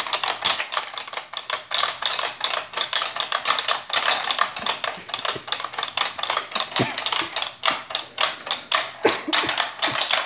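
Rapid, continuous plastic clicking and clacking from the Hydro Strike tabletop water game as its handles are worked over and over during play.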